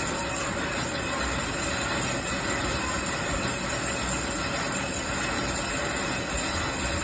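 Metal lathe running: steady machining noise with faint thin whines over a high hiss.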